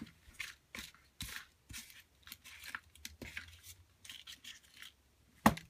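Paper and card scrapbooking embellishments rustling and sliding as they are handled and sorted through, in short, uneven swishes. A single sharp knock near the end is the loudest sound.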